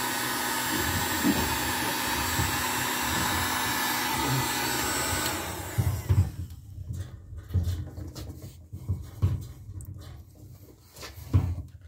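Electric heat gun blowing on high, its fan and hot-air hiss steady, softening the end of a black poly pipe; it cuts off about five seconds in. After that come scattered low bumps and knocks of the pipe being worked onto a PVC valve fitting.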